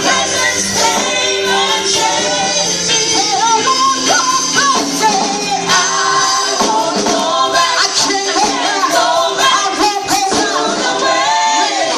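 Church choir singing a gospel song with band accompaniment and tambourine, loud and steady.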